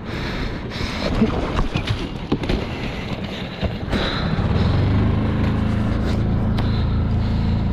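Knocks and clatter, then from about four and a half seconds in the skiff's outboard motor runs steadily with a low, even drone.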